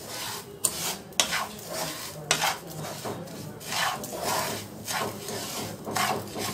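Wooden spatula scraping and stirring dry granulated sugar around a frying pan in repeated strokes, about one a second. The sugar is dry and grainy, being heated for caramel.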